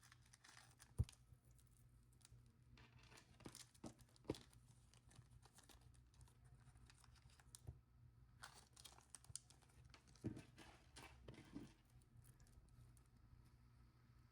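Quiet handling of beading supplies: faint crinkling of small plastic bags and scattered light clicks, with one sharper click about a second in.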